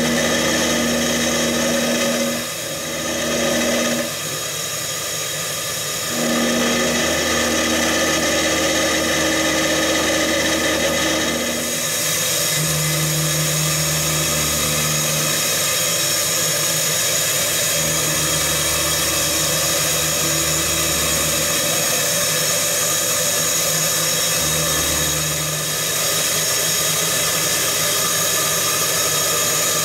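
Mazak QT-Compact 200MSY CNC turning centre milling a metal workpiece with its driven end mill: steady machining and cutting noise, with hum tones that start and stop as the axes feed. The sound changes about twelve seconds in as the machine moves on to a different milling cut.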